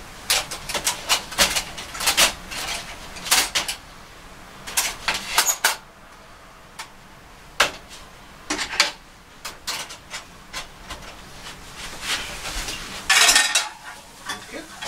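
Stainless steel panels and wire rack of a Uniflame firewood grill solo clinking and clattering as they are slotted together and set on a steel tray, in scattered clusters of sharp metallic clicks. A longer, louder metal rattle comes near the end.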